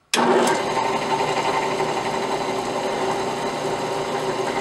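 Benchtop drill press motor switched on just at the start, then running steadily with an even hum as the bit spins up.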